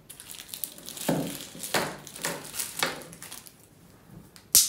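Plastic wrapping crinkling in a few separate rustles as a steel spoon is handled and taken out of its bag, with one sharp click near the end.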